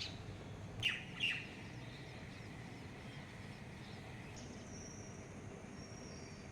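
Bird calls: two sharp, loud chirps about a second in, with a fainter one at the very start, over a steady low background rumble. A thin, high steady tone begins a little past the middle.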